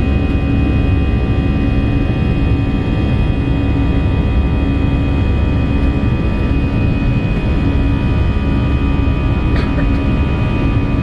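Airliner cabin noise in flight: the engines' steady low drone with several constant whining tones, and a low hum that pulses about once a second.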